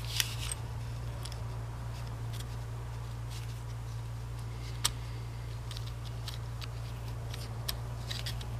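Scattered small clicks and taps of a screwdriver tip against the plastic and metal parts of a DeWalt DC925 drill transmission as the shifting yoke springs are worked into place, the sharpest click about five seconds in. A steady low hum lies underneath.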